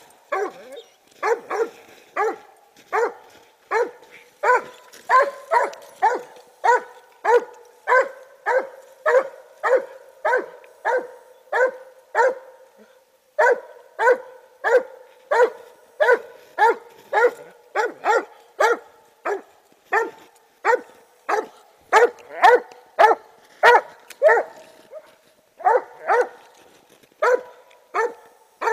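Treeing Walker Coonhound barking treed at the base of a tree: a steady run of short chop barks, about two a second, with two brief pauses. This is the hound's tree bark, signalling game up the tree.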